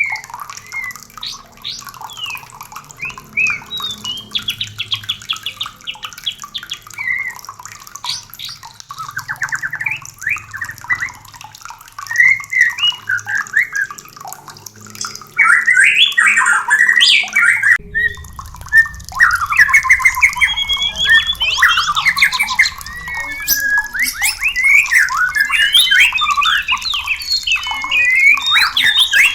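White-rumped shamas singing and calling: rapid, varied whistled phrases mixed with harsh chattering notes, a mix of male song and female calls of birds in breeding condition. The singing grows louder and denser about halfway through, and a low steady rumble comes in underneath.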